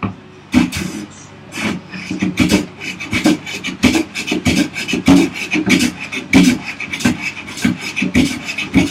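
Short, repeated strokes of a No. 6 hand plane shaving a wooden vise chop, about one to two strokes a second, flattening out saw kerf marks.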